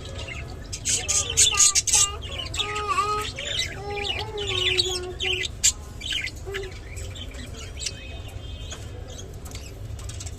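Budgerigars chirping and warbling in many short, gliding calls mixed with sharp clicks, busiest in the first half and thinner toward the end, over a steady low hum.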